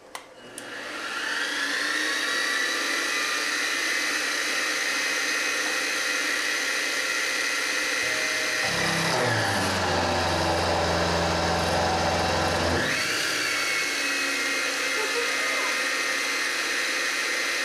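Milling machine's 1-horsepower spindle switched on with a click and spinning up over about a second and a half to a steady whine at about 2100 RPM. From about 9 to 13 seconds a lower hum joins and the whine drops in pitch, then comes back up: the half-inch end mill loading the spindle as it cuts 6061 aluminum 0.041 inch wide at 37 inches per minute.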